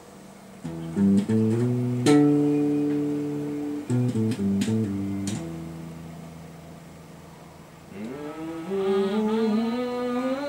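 Guitars play a short plucked phrase and strike a chord that rings for about two seconds, followed by a few more notes. From about eight seconds in, a voice sings a sliding, wordless melody.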